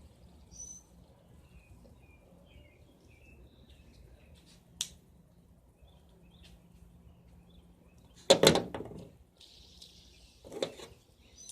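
Fidget spinner being handled during a trick, with a sharp click about five seconds in and two loud knocks about eight and ten and a half seconds in. Birds chirp faintly in the background.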